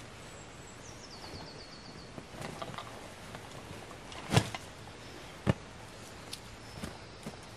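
Haversack being handled and set down on an animal hide: rustling, with two sharp thuds a little over halfway through. A small bird sings a short, high, descending trill about a second in.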